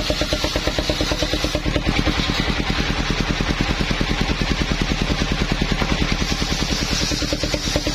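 Engine of a portable circular sawmill running steadily, with an even chugging beat of about nine pulses a second and a constant hiss above it.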